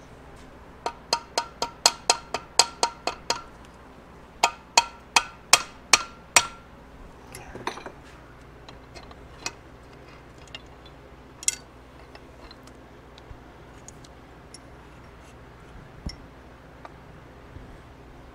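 Two runs of quick, light metallic taps that ring, about three to four a second: roughly eleven, a short pause, then six more. Scattered clicks and knocks follow as the aluminium crankcase halves of a Suzuki TC125 two-stroke engine are worked apart.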